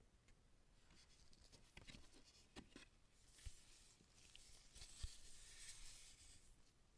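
Near silence with light rustling and a few faint, sharp clicks scattered through, the loudest about five seconds in.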